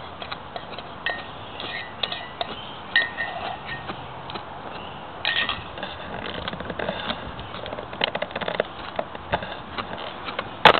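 A knife scraping and slicing a sunfish fillet off the bones on a wooden board: soft scrapes and small clicks, with one sharp knock near the end.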